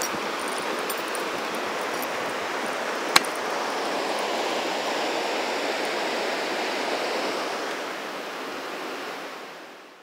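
Rushing water of a rocky mountain river running over boulders in rapids, a steady hiss. A single sharp click sounds about three seconds in, and the sound fades out near the end.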